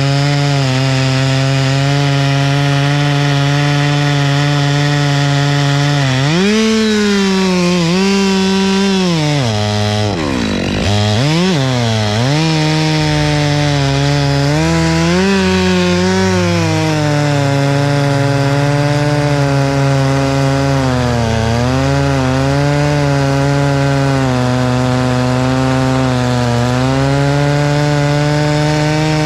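Chainsaw engine running hard, steady in pitch at first. About six seconds in its pitch rises and wavers, dips sharply and recovers twice around ten to twelve seconds in, then wavers before settling back to a steady pitch.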